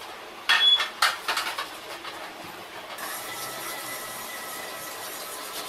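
Handling of a small clear plastic box: a burst of sharp clicks and crinkling about half a second in, a few more clicks just after a second, then a steady faint hiss.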